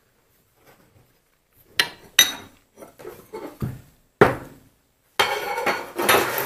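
Small metal lathe parts being handled on a workbench: several sharp clinks and knocks, then a longer stretch of metallic rattling and scraping about five seconds in.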